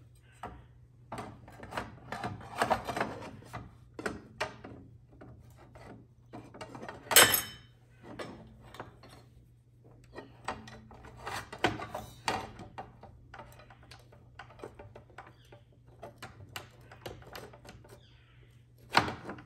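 Irregular metallic clicks, taps and scrapes as a carbide-tipped metal-cutting saw blade and its arbor washer are handled and fitted onto a miter saw's arbor, with a louder clank about seven seconds in and another near the end.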